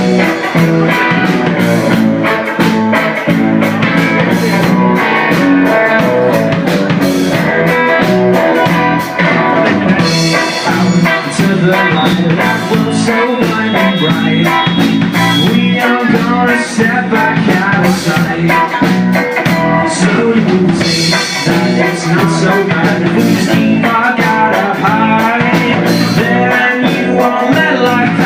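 Rock band playing a song, with guitar, drum kit and singing.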